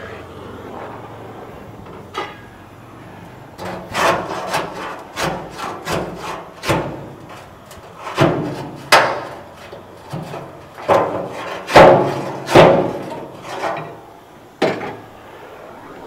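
Hammer blows on rusted sheet metal, a quick irregular series of strikes each ringing briefly, knocking out an old floor pan; the heaviest blows land near the end.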